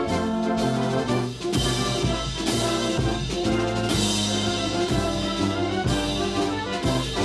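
Music from a brass band or brass-led ensemble over drums: held notes that move from chord to chord, with louder strokes about a second and a half in and again about four seconds in.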